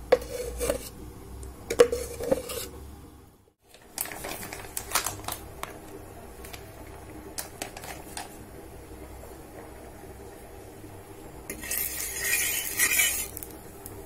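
Metal kitchenware clinking and knocking: steel vessels and an iron tawa being handled, with a short hiss lasting a couple of seconds near the end.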